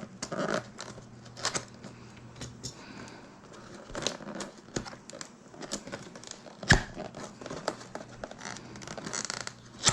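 Soundbar packaging being handled and opened: crinkling and rustling of wrapping with scattered clicks, and one sharp knock about seven seconds in.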